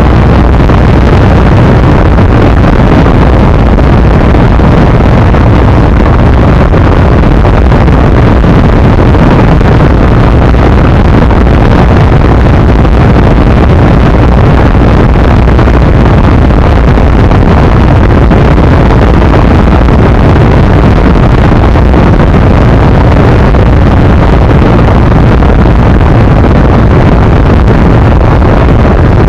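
ZiD 250 motorcycle running at speed, its engine largely buried under loud, steady wind buffeting on the microphone.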